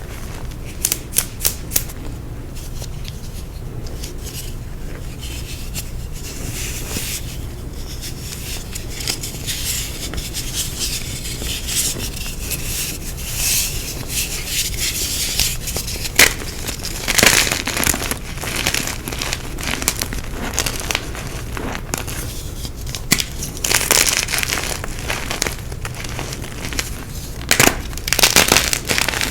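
Blocks of dyed gym chalk being crushed, crunching and crackling irregularly as they crumble, with louder crunches in bursts near the middle and near the end.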